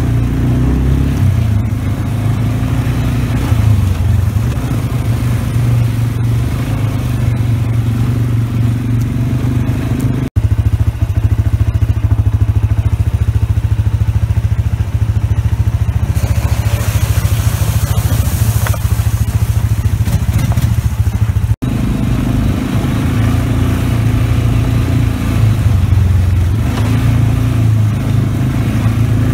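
ATV engine running steadily as the quad rides along a rough dirt trail, with two abrupt brief breaks and a few seconds of added hiss in the middle.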